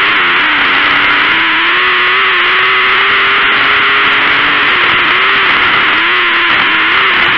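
Onboard sound of a small winged dirt-track racing car's engine at race speed. Its note holds steady, then dips and climbs again several times near the end as the throttle is lifted and reapplied, under a loud steady rush of wind and track noise.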